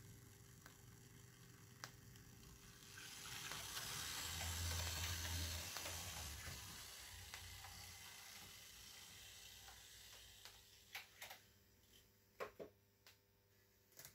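Faint steam hiss from the sound decoder of a Märklin class 85 model steam locomotive. It swells about three seconds in and fades over several seconds, with a low hum beneath it at its peak. Near the end come a few sharp clicks.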